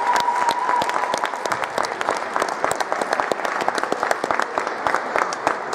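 Crowd applauding: many hands clapping at a steady, dense pace. A held high tone sounds through the first second, then stops.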